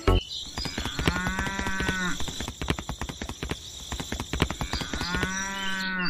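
Cow mooing twice, two calls of about a second each, some four seconds apart, over a quick patter of clicks.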